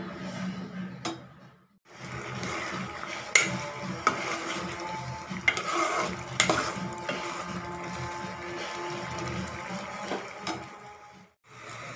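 Metal spoon stirring a thick curry in a steel pot, scraping and clinking against the pot with several sharp clinks, the loudest about a third of the way in and around the middle. The sound cuts out briefly twice.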